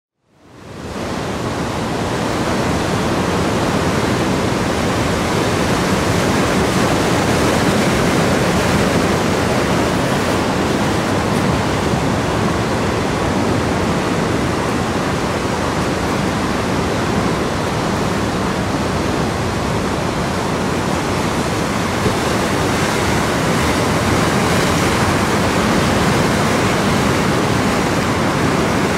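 Steady rushing of ocean surf, fading in over the first second or so.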